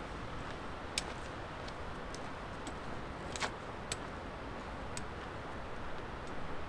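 Sharp, irregular clicks of trekking pole tips striking granite as a hiker walks away on a rocky trail, roughly one a second, the loudest a little over three seconds in, over a steady background hiss.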